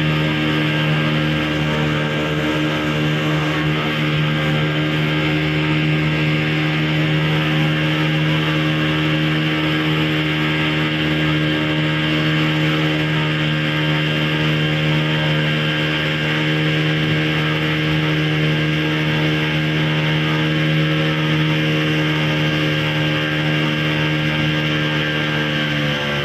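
Tour boat's engine running steadily at an even pitch while under way, its note dropping near the end as it throttles back.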